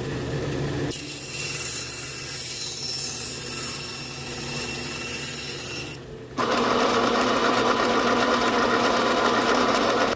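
Bandsaw running and cutting through walnut handle blanks, heard in short edited clips. The sound changes abruptly about a second in and again after about six seconds, following a brief drop.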